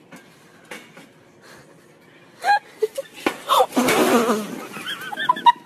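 A wire bin of rubber playground balls tips over about halfway through, with a few sharp clattering knocks as the balls spill out, then voices exclaiming and laughing.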